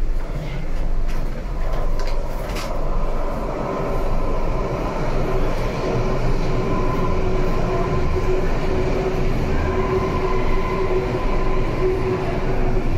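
A BVG A3L71 small-profile U-Bahn train running, heard from inside the car: a steady rumble of wheels and running gear with a couple of sharp knocks in the first few seconds, then two steady whining tones that set in about a second and a half in and hold.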